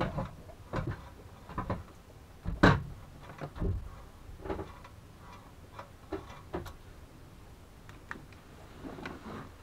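Scattered light knocks and clicks of metal engine parts being handled during an engine rebuild, the loudest about two and a half seconds in.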